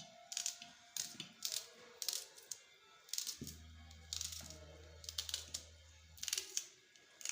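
A run of sharp, irregular kitchen knocks and clicks, about two a second, from food preparation on a hard surface. A low hum comes in for about three seconds midway.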